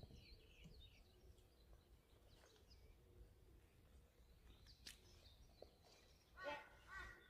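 Near silence with faint bird calls: a few thin chirps at the start, then a bird calling twice in harsh, arched notes near the end.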